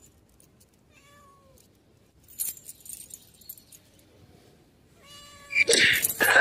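Siamese cat meowing: a faint short meow about a second in, then a louder, drawn-out meow near the end.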